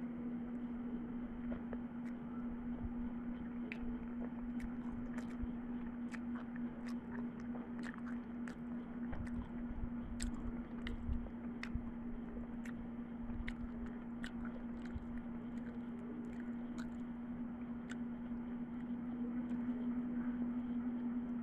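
A person chewing a mouthful of chicken biryani, with irregular small wet mouth clicks and smacks, over a steady low hum.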